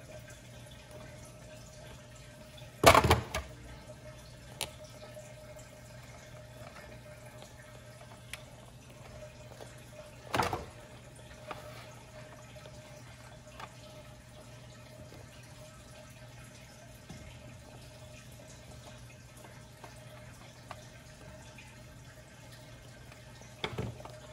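Small blue-handled cutters snipping away the melted rubber around the eye of a Big Mouth Billy Bass skin: a few short sharp snips and handling noises of the rubber skin, the loudest about three seconds in and another about ten seconds in. A steady faint hum runs underneath.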